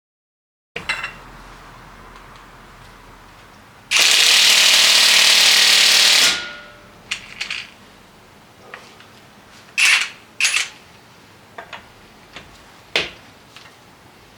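Impact wrench hammering on the front axle nut in the wheel hub in one loud burst of about two seconds, then stopping; a few short clicks and knocks of tools follow.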